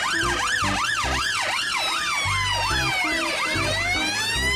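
Police van sirens: one on a fast yelp, its pitch rising and falling several times a second, while a second siren wails, falling and then rising again about three seconds in.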